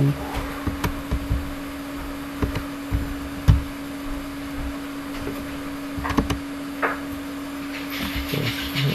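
Computer mouse clicks and light knocks, scattered and irregular, over a steady low electrical hum.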